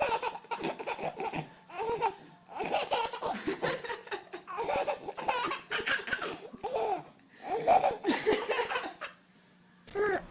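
A small child laughing hard in repeated fits, bursts of giggling broken by short breaths.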